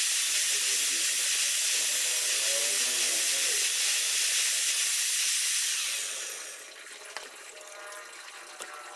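Power drill running steadily with a loud hiss, then stopping about six seconds in.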